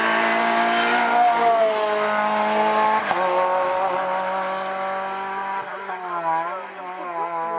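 Renault Clio 3 Cup race car's four-cylinder engine at high revs as the car accelerates through a bend and away up the hill. The pitch drops suddenly about three seconds in with an upshift, and the note fades and wavers near the end as the car pulls away.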